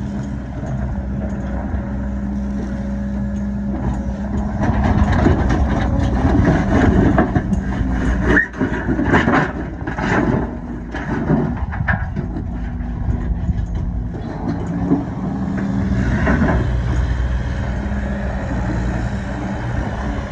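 Diesel engine of heavy equipment running steadily, with a stretch of loud clattering and scraping in the middle, like rock being moved.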